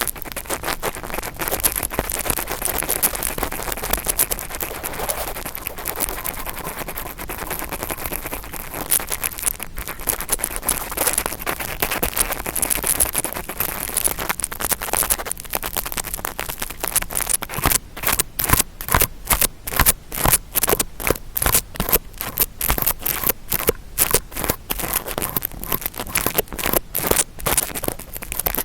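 Close-up ASMR ear-cleaning sound made with an interdental brush: continuous bristly scratching and scraping that turns, about two-thirds of the way through, into quick even strokes at about two or three a second.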